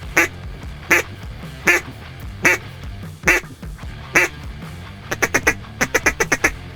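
Hen mallard duck call blown to bring in an approaching duck: six loud, evenly spaced quacks a little under a second apart, then a quick run of about ten short quacks near the end.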